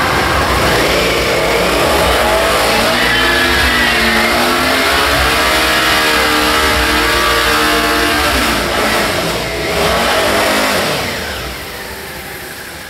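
Suzuki SV650 V-twin revving hard through a burnout, its rear tyre spinning with a loud rushing hiss and the engine pitch rising and falling, echoing off concrete tunnel walls. The noise eases off over the last couple of seconds.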